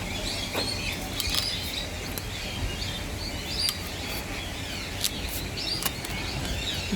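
Small birds chirping continually in the background, with a steady low hum and about five sharp clicks from a blade cutting and peeling the outer sheath of an armoured cable.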